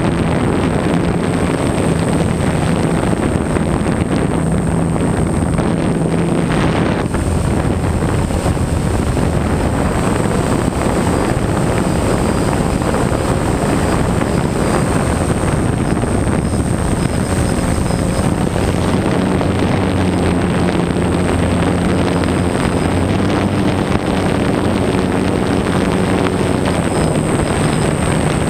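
DJI Phantom quadcopter's motors and propellers buzzing steadily in flight, heard up close from a camera mounted on the drone, with wind rushing over it. The motor pitch wanders up and down as the drone adjusts, over a thin high whine.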